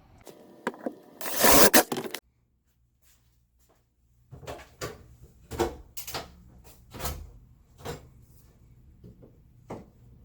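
Workshop handling sounds of wooden cleats and a jig: about a second of loud scraping noise near the start, then, after a gap, a series of separate wooden knocks and clunks.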